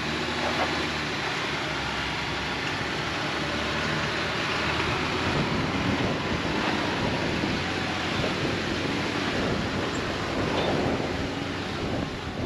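Strong wind buffeting the microphone, with an off-road four-wheel-drive's engine running underneath as it climbs a steep rock obstacle.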